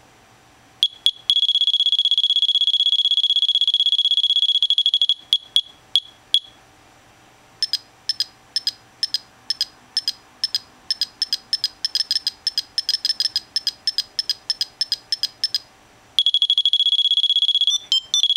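Multiplex RC transmitter's telemetry tone: a high-pitched electronic tone, first held for about four seconds, then broken into beeps that quicken to about four a second, then held steady again near the end. The changing pattern signals whether the measured airspeed is above or below the set reference speed.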